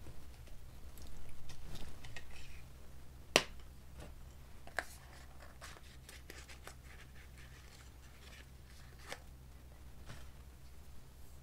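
Quiet room tone with a steady low hum, broken by a brief rustle and a few small sharp clicks and taps from hands handling things at a desk, the loudest about three and a half seconds in.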